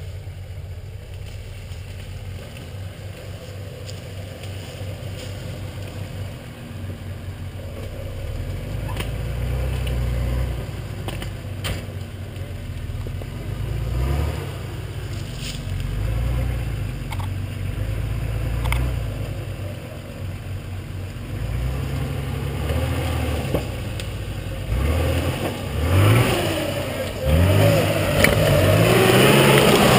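Off-road competition 4x4 ute's engine revving in repeated bursts, its pitch rising and falling, growing louder as the truck approaches through the gully. A few sharp knocks and clatters from the truck working over the rough ground.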